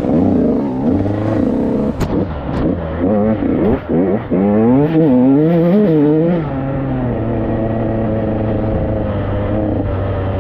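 KTM 85 dirt bike's two-stroke engine revving up and down over and over while riding, then holding a steady pitch from about six seconds in. Two sharp knocks about two seconds in.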